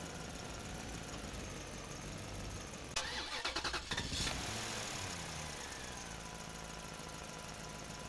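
Engine sound of a tractor idling steadily; about three seconds in, a loud rapid rattling burst like an engine start, after which the pitch falls back to a steady idle.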